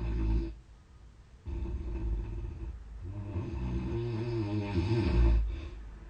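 A sleeping person snoring loudly. One snore ends just after the start; after a pause of about a second, a long snore of about four seconds builds to its loudest near the end.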